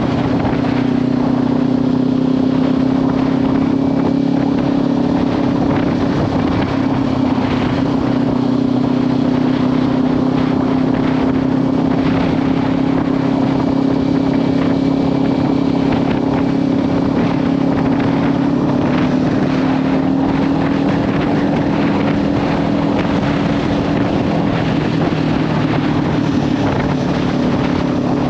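Kawasaki Ninja 500 parallel-twin engine with a Leovince slip-on exhaust, cruising at a steady engine speed. Heavy wind noise rushes over the microphone.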